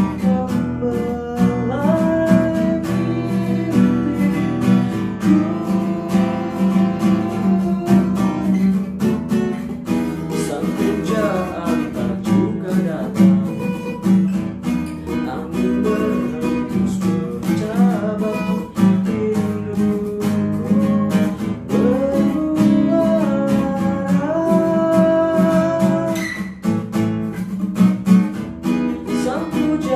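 Acoustic guitar strummed steadily, with a voice singing a slow melody over it.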